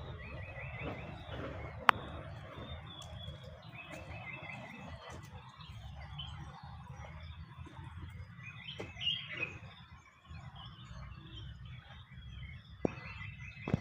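An animal's short rattling call: a quick run of even pulses under a second long, repeated about every four seconds over a low rumbling background. There is a single sharp click about two seconds in.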